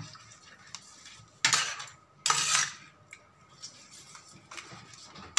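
Metal spoon beating yogurt in a steel pan, scraping and clinking against the pan's sides and bottom, with two louder strokes near the middle.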